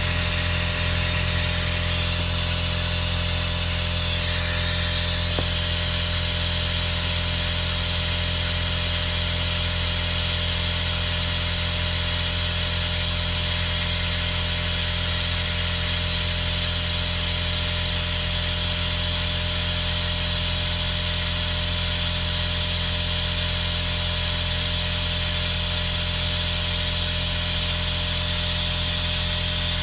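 Air-powered vacuum brake bleeder running steadily, compressed air hissing through it as it draws brake fluid and air out through a hose on the brake caliper's open bleed nipple.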